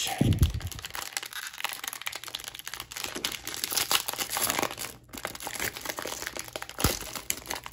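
Plastic wrapper of a 2020 Panini Prestige football card pack being torn open and crinkled by hand: a dense run of crackling, with a dull bump just after the start.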